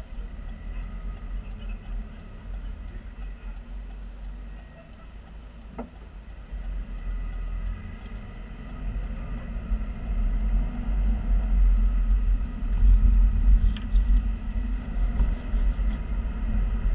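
Car interior road noise: a low engine and tyre rumble heard from inside the cabin while driving. It grows louder about halfway through as the car picks up speed.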